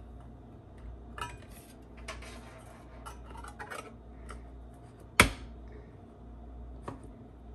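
Handheld can opener working around the rim of a metal can, with small clicks and metal scrapes. One loud, sharp metallic click about five seconds in, just before the cut lid is lifted off.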